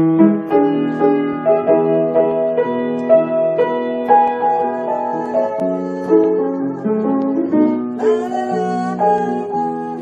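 Instrumental interlude of a song's backing track: a piano-like keyboard plays a melody over sustained chords, with no singing.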